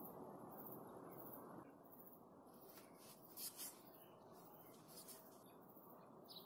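Near silence: faint background hiss, with two soft taps about three and a half seconds in.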